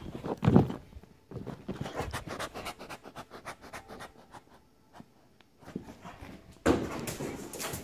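Boxer dog panting hard during play, with quick scratchy pulses of breath and handling noise. A loud low burst comes about half a second in, and a louder rustling scuffle near the end.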